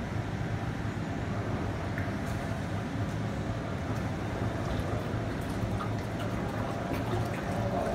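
Steady low hum of a running fresh pho noodle production line, with liquid rice batter sloshing as an agitator stirs it in a stainless steel tank.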